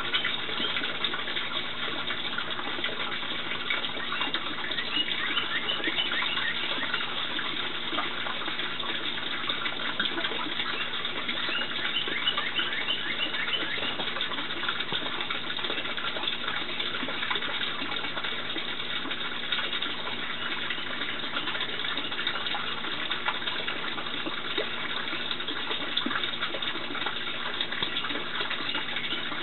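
Steady rush of running water feeding or circulating the ducklings' pool, with short runs of thin, high peeps from day-old wood duck ducklings over it, clustered a few seconds in and again near the middle.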